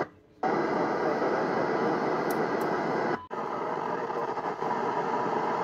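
FM static from a Yaesu FT-847 transceiver's speaker, tuned to the SO-50 satellite's 436.8 MHz downlink with the squelch open on a weak, noisy signal. The hiss cuts out briefly twice, right at the start and about three seconds in.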